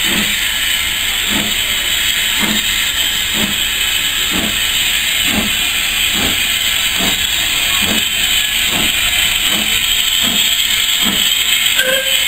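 Small steam tank locomotive moving slowly under steam with its cylinder drain cocks open: a steady hiss of blowing steam with soft exhaust chuffs about once a second, quickening slightly.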